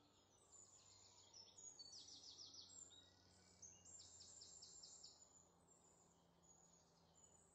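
Near silence: faint ambience with a few bouts of rapid, high-pitched chirping trills over a low steady hum.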